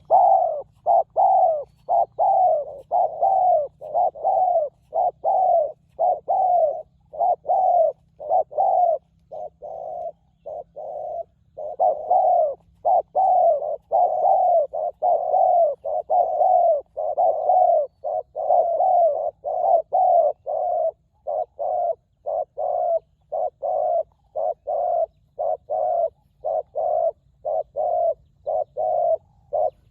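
Spotted dove cooing over and over, short resonant notes at about two a second with a brief break about eleven seconds in.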